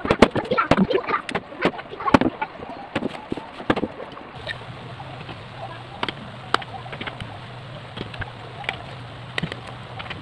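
Steel wood chisel cutting into hardwood, chopping out the waste between saw kerfs: a fast run of sharp knocks and cracks as chips split away. About four seconds in the knocks thin to scattered taps over a steady low hum.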